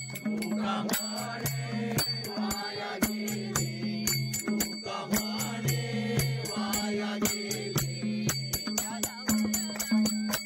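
Marathi devotional music: chant-like singing over a quick, even beat of metallic jingling strikes and a low repeating bass line.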